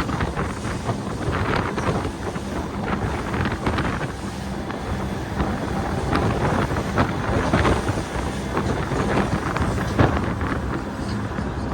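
Charter fishing boat running at speed on open water: a steady low engine hum under heavy wind buffeting on the microphone, with frequent short splashes and slaps as the hull cuts through the waves.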